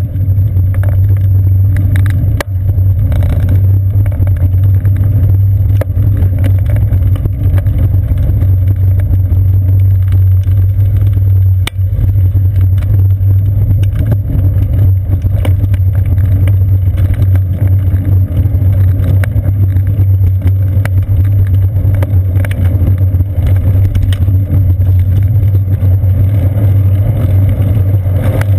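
Steady low rumble of riding noise picked up by a GoPro in its housing on a bicycle's seat post, with frequent short clicks and knocks as the tyres roll over wooden boardwalk planks.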